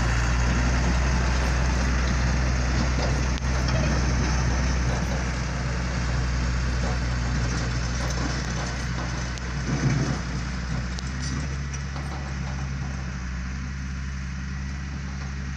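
Engine of a Brimont four-wheel-drive snowplough truck running steadily as the truck pulls away over packed snow, growing quieter toward the end. There is a brief louder rumble about ten seconds in.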